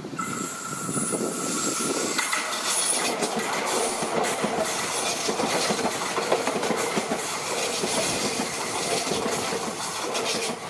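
Alstom X'Trapolis Mega electric multiple unit passing close by, its wheels rumbling and clicking rapidly over the rails. Over this runs a steady high whine that steps up in pitch about two seconds in.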